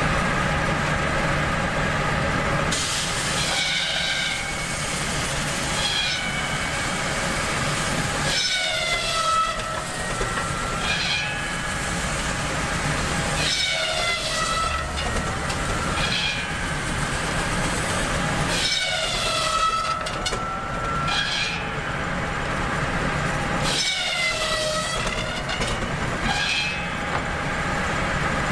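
Large circular saw mill running steadily and slicing wooden blocks, five cuts about every five seconds; on each cut the whine of the blade drops in pitch as it bites into the wood, then recovers. A low steady hum of the driving machinery runs underneath.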